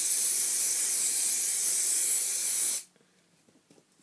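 Aerosol hairspray being sprayed onto hair in one long, continuous hiss that cuts off sharply just under three seconds in.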